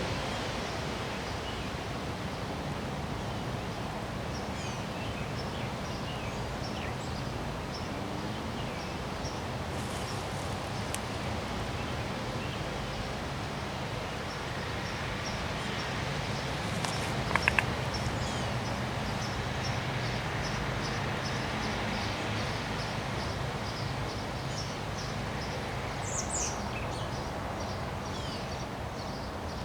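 Steady wind noise with rustling, and birds chirping in short calls throughout. Just past halfway, three quick sharp clicks stand out above the wind.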